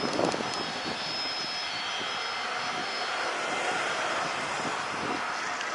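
Aircraft engine running steadily, with a thin high whine over the noise.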